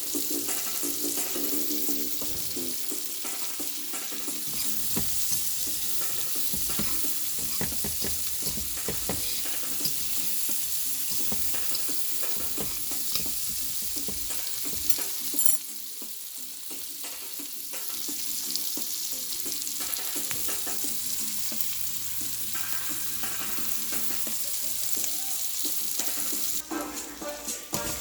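Food sizzling in a hot frying pan while it is stirred, with the utensil knocking and scraping against the pan; a sharp knock about fifteen seconds in.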